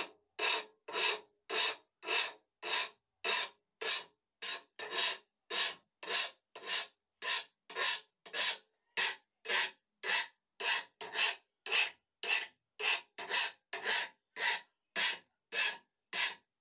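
Hand file rasping across the edge of a steel lawnmower blade clamped in a vise, in even strokes about twice a second, taking the jagged burr off the freshly sharpened edge.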